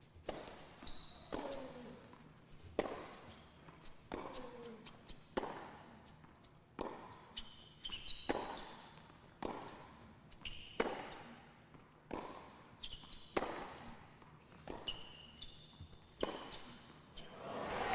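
A tennis rally on a hard court: the ball is struck back and forth with sharp racket hits about every second and a half and quieter bounces between, with short high shoe squeaks. Crowd applause rises near the end as the point finishes.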